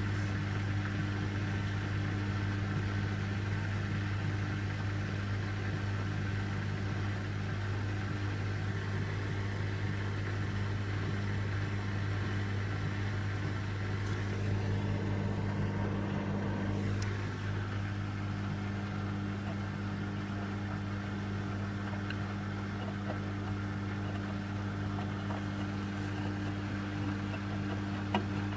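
Beko washing machine running a cottons 60 °C wash: a steady low hum with a few fixed tones. It shifts briefly and settles a little quieter about seventeen seconds in.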